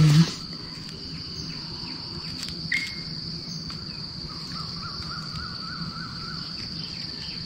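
Insects droning steadily at a high pitch, with a wild bird giving a short chirp about three seconds in and a warbling song in the middle.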